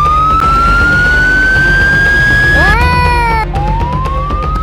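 A siren wailing: one tone climbs slowly in pitch, drops sharply about two and a half seconds in, and starts climbing again. Background music with a steady beat plays underneath.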